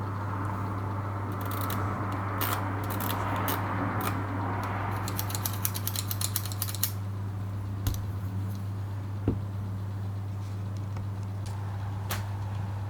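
Small sharp clicks and light scraping from handling a vintage manual zoom lens, coming thickest in a quick run about halfway through, over a steady low hum.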